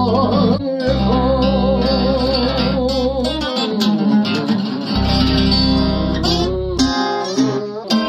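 Instrumental close of a Russian romance song: acoustic guitar accompaniment with steady low bass notes under a long held melody note with vibrato. The bass drops out about halfway through and returns briefly near the end.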